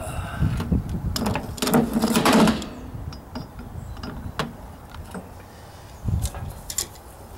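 Clattering handling noise, dense clicks and knocks for the first couple of seconds, then a few scattered sharp taps.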